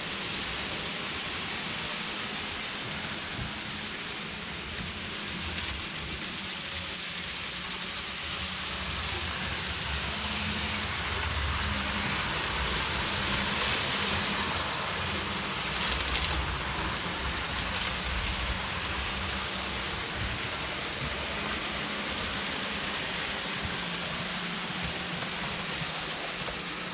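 Hornby model trains running round the layout's track: a steady rushing noise with a low motor hum that gets louder in the middle, as a train comes close.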